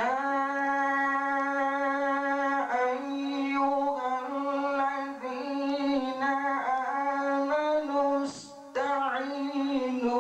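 A male reciter chanting the Quran in the melodic tajweed style, holding long drawn-out notes on a steady high pitch with small turns in the melody, and a brief break for breath about eight seconds in.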